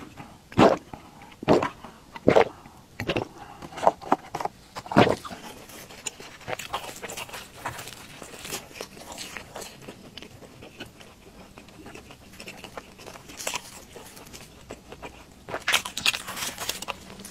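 Close-up crunching and chewing of a fried dough stick (youtiao): several loud crisp bites in the first few seconds, then softer chewing, with louder crunches again near the end.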